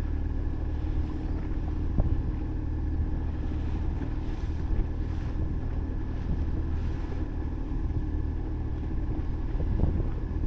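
A fishing boat's engine running steadily under way, with wind buffeting the microphone and a brief knock about two seconds in and another near the end.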